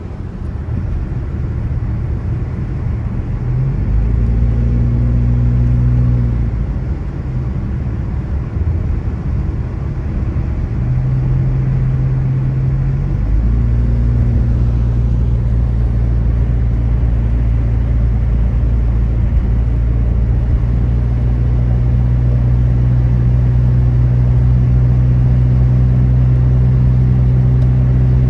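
Car engine and road noise heard from inside a moving car, a steady low hum. The engine note rises about four seconds in, drops back, then rises again about thirteen seconds in and holds steady.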